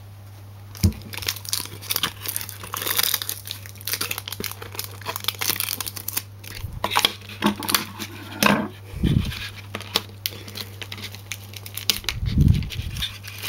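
Toy packaging card crinkling and tearing as hands work accessories free of it, with scattered clicks and two dull thumps in the second half.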